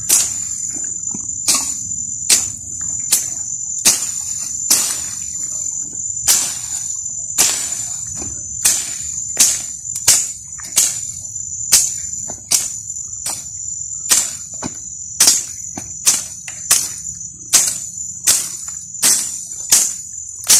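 Night insects chirring steadily, with a rhythmic swish-and-strike of a hand tool cutting through weeds and soil, about one stroke every three-quarters of a second.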